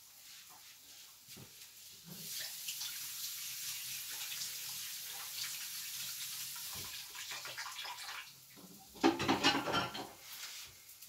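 Water running, likely from a kitchen tap: a steady hiss that starts suddenly about two seconds in, followed near the end by a louder, uneven burst of splashing lasting about a second.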